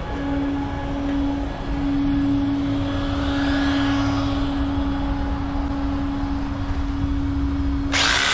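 A steady machine hum on one low tone. A faint whooshing swell rises and fades around the middle, and near the end a loud hissing noise starts abruptly.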